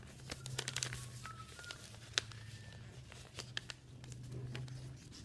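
A sheet of paper being folded and creased by hand, crinkling with many short crackles and one sharper snap about two seconds in.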